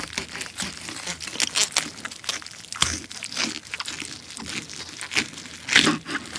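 Crisp roasted skin of a German pork hock (Schweinshaxe) crackling as it is cut with a knife and torn apart by hand: a dense run of sharp crackles, with a few louder crunches near the end.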